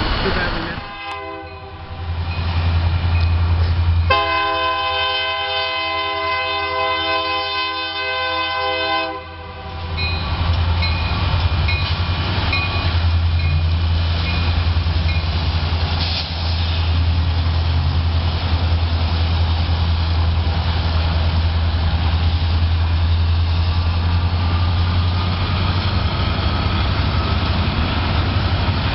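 A Union Pacific diesel locomotive's air horn sounds one long blast of about five seconds, a few seconds in. A steady low rumble of the passing train runs under it and on afterwards.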